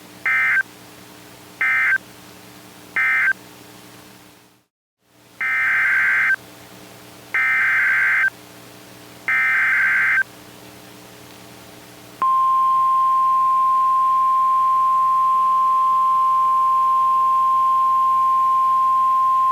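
Emergency Alert System digital data bursts and alert tone from a NOAA Weather Radio broadcast. Three short, buzzy end-of-message bursts close one warning; after a brief dropout come three longer header bursts announcing the next special marine warning. About twelve seconds in, the steady single-pitch Weather Radio alert tone starts and holds, over a faint hum.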